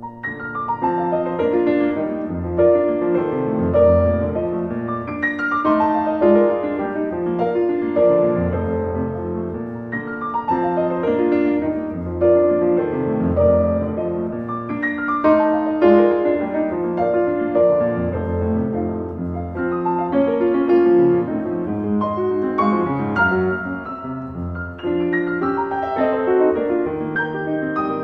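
Solo piano music, a steady flow of notes.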